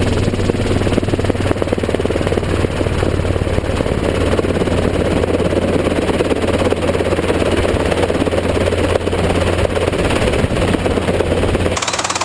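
Helicopter rotor and engine running steadily with a deep, even drone. The drone drops away abruptly just before the end.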